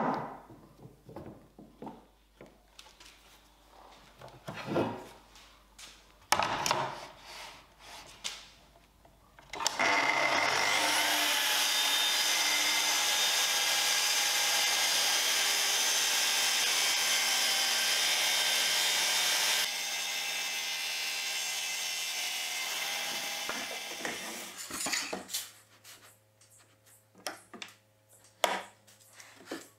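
Festool plunge-cut track saw running along its guide rail and cutting through the edge of a wooden panel. It starts about a third of the way in after some clicks and taps from the rail clamps being tightened, and runs steadily for about ten seconds. It then drops in level and fades out a few seconds later, with a few knocks near the end.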